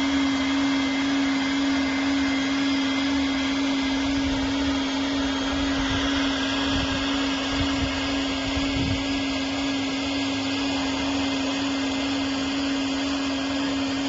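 TOP2000D PVC pool-lining welding machine running steadily: a constant whirring rush like a blower, with a strong unchanging hum under it.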